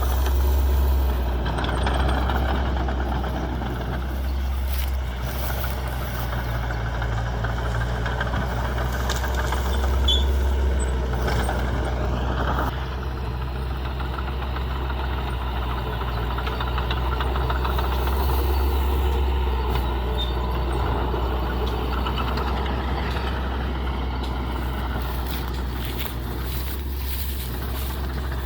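Heavy diesel earthmoving machinery running steadily under load, the engine note swelling and easing several times.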